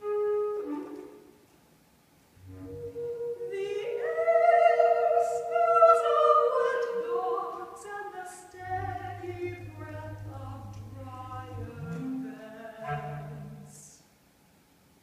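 Mezzo-soprano singing a classical art song with bass clarinet. The loudest part is a wavering, held vocal line in the middle, followed by low sustained bass clarinet notes under the voice.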